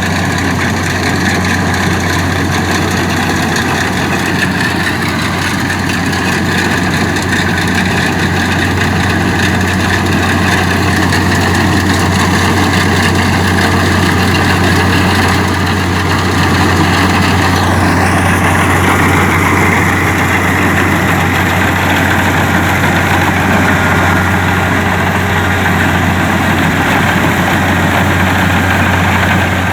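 Kubota DC-70 combine harvester's diesel engine running steadily with a deep hum, its sound shifting slightly a little past halfway through.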